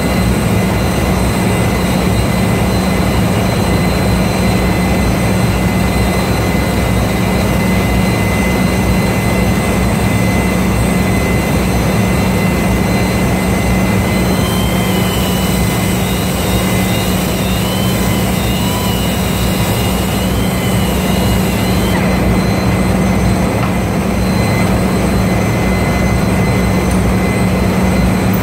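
A hand-held power grinder running steadily with a constant hum and hiss as it cleans the head of a ship's main-engine exhaust valve. A thin wavering whine joins in from about halfway through and stops a few seconds later.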